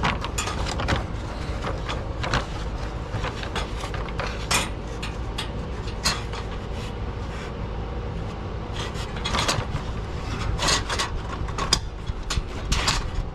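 Irregular knocks, clicks and scrapes of a truck's belly pan being handled and fitted back up under the engine. The knocking is sparse at first and grows busier in the last few seconds.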